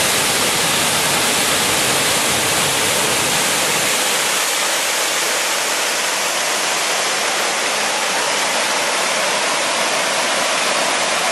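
Small waterfall and the rocky brook below it rushing steadily: a full, even hiss of falling and tumbling water.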